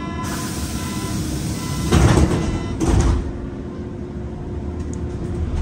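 Berlin U-Bahn carriage's sliding doors closing at a station stop: a hiss, then two loud bangs about a second apart, heard from inside the carriage.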